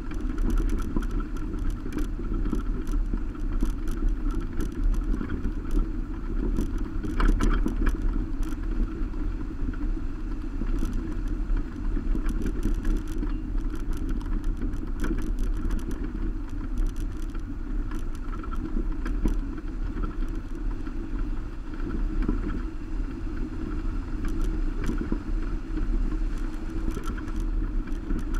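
Subaru Baja driving on a gravel road, heard from its roof rack: a steady low rumble of tyres and wind, with scattered sharp clicks and rattles throughout.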